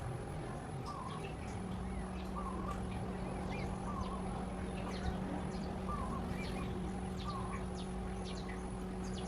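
Outdoor ambience: a bird repeats a short, twisting call about every second and a half, with thin high chirps around it and a steady high-pitched whine. A steady low hum comes in about a second and a half in.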